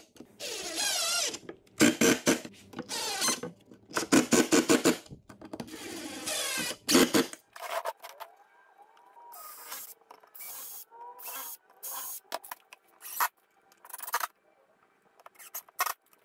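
DeWalt cordless drill boring pilot holes and driving screws into treated pine slats. For the first seven seconds it runs in about six short bursts, its whine rising and falling in pitch as the trigger is squeezed and let go. After that come shorter, quieter bursts.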